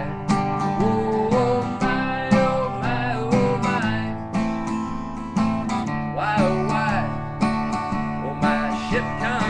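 Acoustic guitar strummed in a country tune, with a wavering melody line above the chords.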